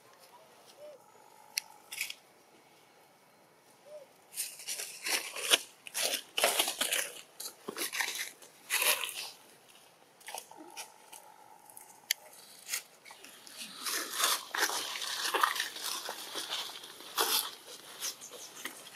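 Dry fallen leaves crunching and rustling in irregular bursts of crackles as feet move over the leaf litter, starting about four seconds in.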